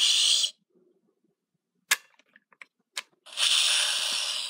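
Power Rangers Lightning Collection Master Morpher toy playing hissing, static-like electronic sound effects through its small speaker. The first cuts off about half a second in, and the second starts about three and a half seconds in and fades near the end. Two sharp button clicks come in between.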